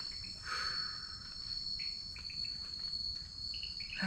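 Crickets trilling in the jungle night, one steady high-pitched unbroken note with a few fainter, shorter insect calls beneath it.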